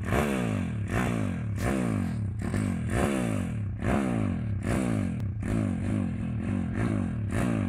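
Stomp Racing 140cc YX pit bike's single-cylinder four-stroke engine revved hard over and over, about once a second. Each burst of throttle is followed by the engine note falling away.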